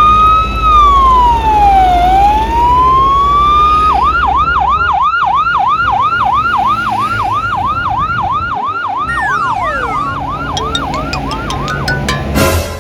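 Electronic emergency-vehicle siren: a slow wail rising and falling, switching about four seconds in to a fast yelp of about three sweeps a second, over a low steady rumble. A falling tone cuts across the yelp partway through, and a short loud noise comes near the end.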